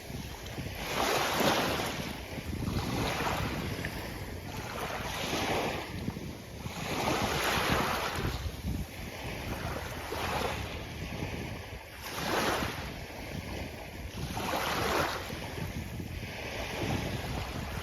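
Sea waves washing onto a beach, one rush of surf every two seconds or so rising and falling away, over a steady low rumble of wind on the microphone.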